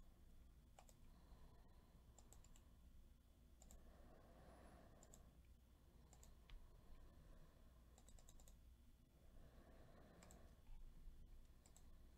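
Near silence with faint, scattered computer mouse and keyboard clicks, some in quick pairs, over a low steady hum.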